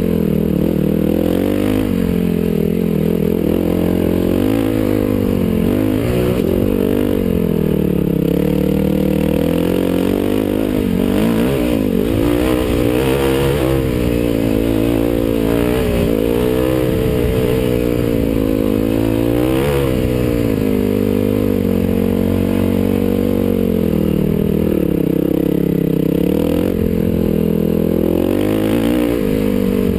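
Dirt bike engine running under load, its revs climbing and dropping back over and over as the rider works the throttle along the trail.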